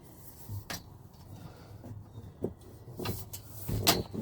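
Scattered knocks and clunks of things being handled while loading a camper van, with the loudest clunk near the end.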